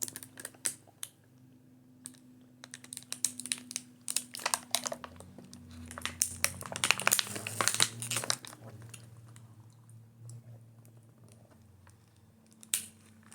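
Plastic water bottle being handled, its thin plastic crinkling and clicking in a dense run through the middle, with a sharper click near the end. A steady low hum runs underneath.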